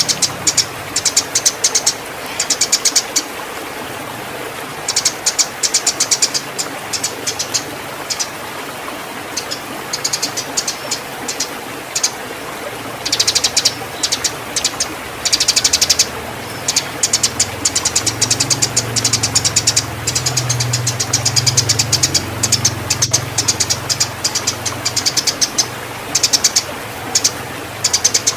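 Eurasian tree sparrows giving the excited, quarrelling chatter of birds in breeding condition: bouts of rapid, sharp, high chirps, each a second or two long with short pauses between, over a steady hiss.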